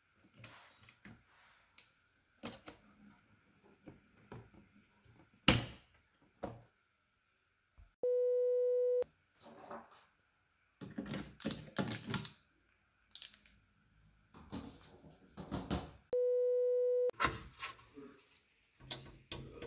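Something being handled and worked open: scattered rustles and clicks, with one sharp snap about five seconds in. Two steady one-second electronic beeps, several seconds apart, are the loudest sustained sounds.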